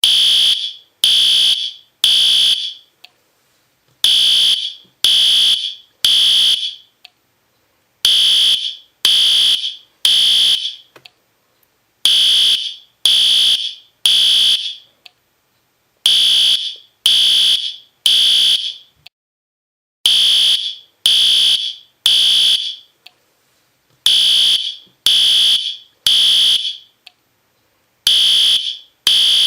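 System Sensor P2R fire alarm horn strobe's horn sounding loud in the temporal-three pattern: three short high-pitched blasts, a pause, then again, repeating about every four seconds. This is the standard fire evacuation signal.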